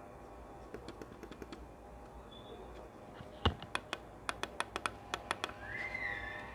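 Canyon MW-9 computer mouse buttons clicked one after another to test which are silent: a few faint, muffled clicks, then a loud click about halfway through and a run of sharp clicks, about four a second, from the buttons that are not silent. A short high tone sounds near the end.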